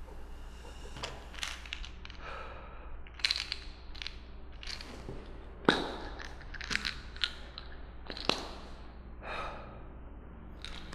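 Crinkling and crackling of a piece of red plastic wrap being squeezed and worked in a hand, in irregular crackles with a few sharper cracks.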